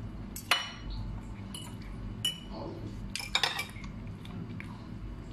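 Metal fork and spoon clinking against a plate while eating: a few sharp clinks, the loudest about half a second in and a quick cluster of them around three and a half seconds.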